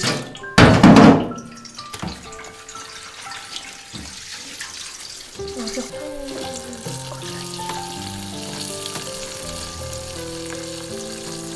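Tap water running into a metal bowl in a stainless-steel sink, with a loud knock about a second in as the bowl is handled. Background music with sustained notes comes in over the water partway through.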